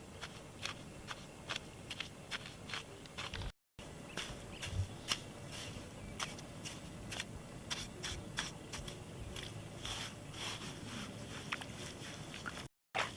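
Irregular crisp clicks, snaps and scrapes of things being handled and worked by hand, broken twice by a short moment of dead silence.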